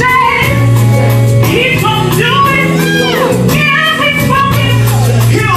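Live gospel praise music: a band with held bass notes and light percussion under singing voices. About three seconds in there is a quick run sliding down in pitch.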